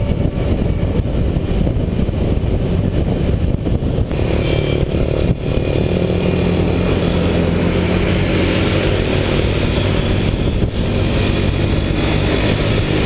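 Motorcycle engine running at cruising speed with wind rushing over the microphone, steady throughout apart from a short dip about five seconds in.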